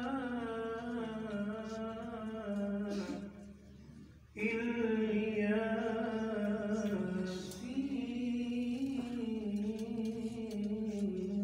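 A man chanting a religious salaam recitation in long, held melodic lines, with a short break about three seconds in before the next line begins.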